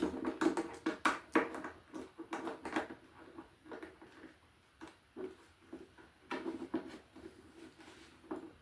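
Irregular light clicks and taps of small metal tuning-machine parts being handled and fitted into a wooden lap dulcimer headstock, the loose tuners knocking about.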